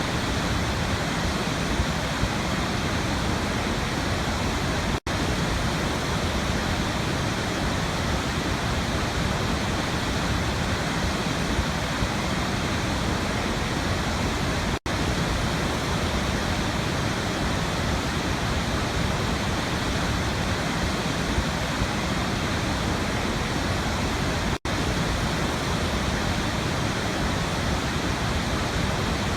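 Waterfall rushing with a steady, even roar of falling water. The sound cuts out for a split second three times, about ten seconds apart.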